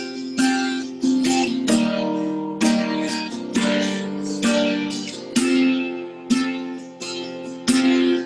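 Acoustic guitar strummed solo, a chord struck about once a second and left ringing: the instrumental intro to a country song.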